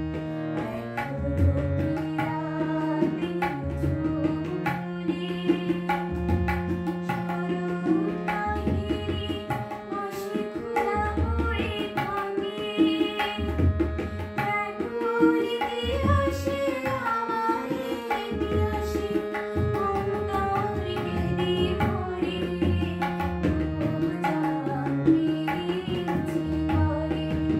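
A woman singing a melody to her own hand harmonium, whose reeds hold sustained chords under the voice, with tabla keeping a steady beat of deep drum strokes.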